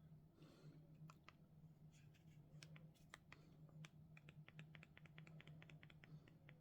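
Faint, light clicks of remote-control buttons being pressed, scattered at first, then a quick run of about three or four presses a second in the second half, over a low steady hum.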